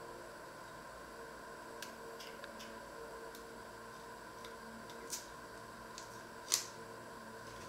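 Onions being peeled by hand with a small knife: a scattering of soft clicks and crackles of knife and dry onion skin, with one sharper click about six and a half seconds in, over a steady hum.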